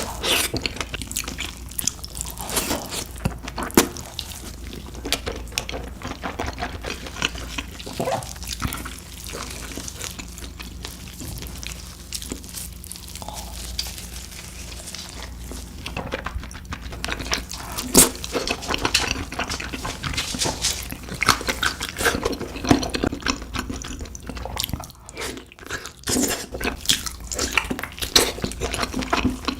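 Close-miked eating of spicy beef feet: biting and chewing the gelatinous trotter meat, with many short wet, sticky mouth clicks. The clicks thin out for a few seconds in the middle, then pick up again.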